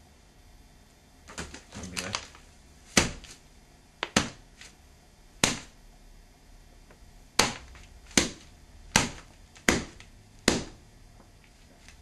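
Knife strikes on a rubber foot prop stuffed with wet socks and wrapped in wet newspaper, a foley stand-in for a blade hitting flesh. A few soft taps come first, then about eight sharp, separate hits, roughly a second apart.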